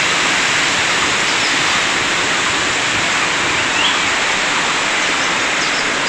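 Steady rushing of a rain-swollen forest stream, an even wash of water noise with no break, and a brief faint chirp about four seconds in.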